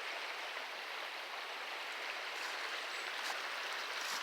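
Fast-flowing river rushing, a steady, even hiss of running water.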